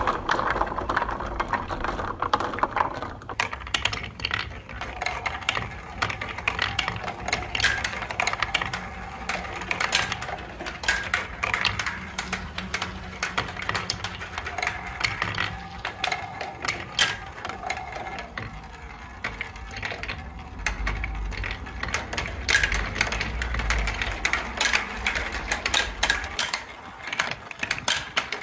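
Marble-run balls rolling and clattering along plastic TrixTrack wave slopes, wooden track pieces and plastic spiral chutes: a steady run of quick clicks and rattles. A low rumble comes in for several seconds about two-thirds of the way through.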